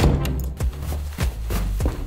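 Background music with a steady beat and bass, a little under two beats a second.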